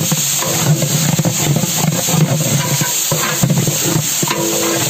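A long metal ladle stirring and scraping sliced onions and mint as they fry in oil in a large aluminium pot, with a steady sizzle and repeated scrapes against the pot. Background music plays along with it.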